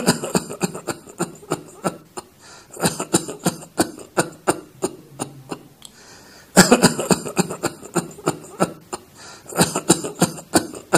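Recorded coughing: a run of short, crackly coughs in several separate bouts, played as the cough heard in pulmonary fibrosis, pulmonary edema and pneumonia.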